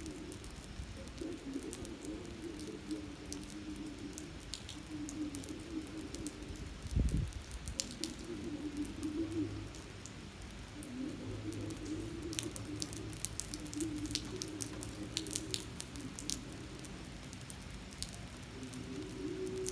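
Steady rain falling on wet pavement, with single drops ticking sharply close by. A low wavering tone comes and goes in short stretches, and there is one low thump about seven seconds in.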